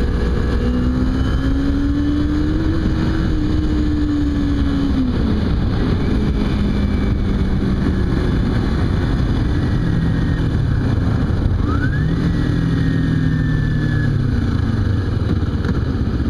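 Kawasaki Ninja 250's parallel-twin engine running under way, its pitch rising, dropping about five seconds in and climbing again about twelve seconds in, under steady wind and road noise.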